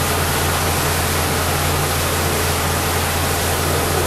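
Steady rushing hiss of a fire hose spraying water into a burnt room, over a constant low hum.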